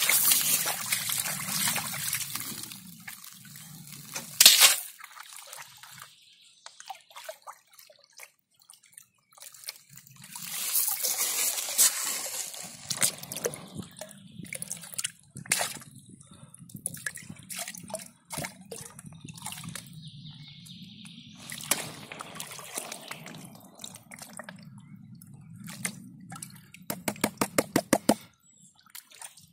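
Water sloshing, splashing and trickling as a plastic gold pan is swirled and dipped in shallow river water, in uneven bursts with quieter gaps. There is a sharp splash about four and a half seconds in, and a quick run of rapid, even taps near the end.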